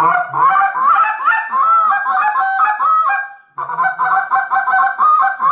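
A freshly assembled reed waterfowl call, with its reed, wedge and tone board just set, blown in rapid short notes that break in pitch. It plays in two runs with a brief pause about three and a half seconds in. The tone comes out a little high-pitched for the caller, the reed set a little light for the way he blows.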